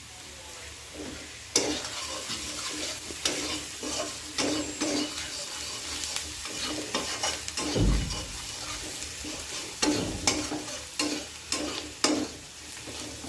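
Chopped onion, garlic and green chilli sizzling in hot oil in a kadai while a spoon stirs and scrapes the pan in quick repeated strokes. A low bump sounds about eight seconds in and again near ten seconds.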